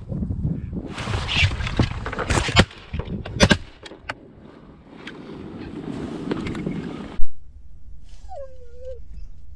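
Rustling and clatter of a hunter shifting in a layout blind and handling a shotgun, with several sharp knocks and a heavy bump against the gun-mounted camera about seven seconds in. Near the end a dog whimpers once with a short falling whine.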